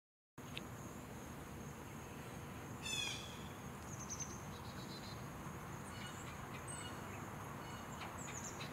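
Outdoor ambience that cuts in just after the start: insects keep up a steady high-pitched drone, with scattered bird chirps. The loudest moment is a quick run of bird notes about three seconds in.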